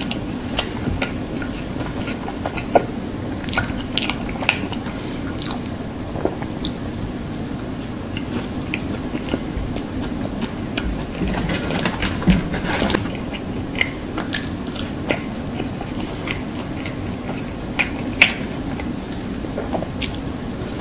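Close-miked chewing and biting into a burger, with scattered sharp wet smacks and clicks over a steady low hum.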